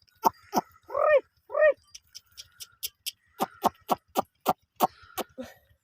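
Animal calls: two short, high bleats about a second in, amid a run of quick, sharp chirps that come about three a second through the second half.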